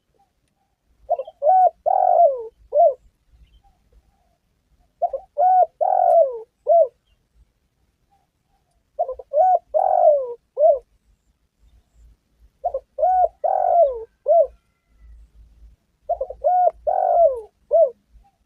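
Spotted dove song: five phrases, each about two seconds of several coos, repeated roughly every four seconds.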